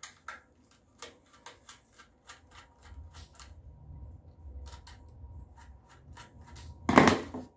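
A small screwdriver undoing the screws on the underside of a plastic Hive heating receiver: a run of small, irregular clicks and ticks as the screws turn, with a louder clatter about seven seconds in.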